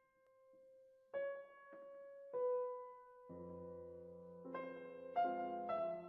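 Background piano music: a few single notes, each fading after it is struck, then fuller chords with a low bass joining about three seconds in.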